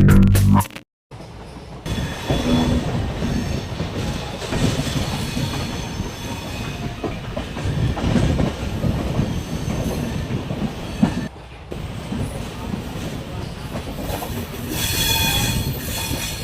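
Passenger train wheels running over points as the train changes tracks: an irregular clattering over the switches and rail joints, with a high wheel squeal about fifteen seconds in. A brief burst of music plays at the very start.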